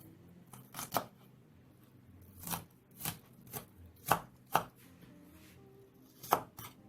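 A knife chopping on a cutting board: about nine sharp, irregular strikes, some in quick pairs, with short pauses between them.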